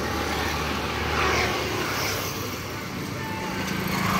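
Road traffic noise, with motorcycles running across the bridge. A steady low engine hum moves up to a higher pitch about three seconds in.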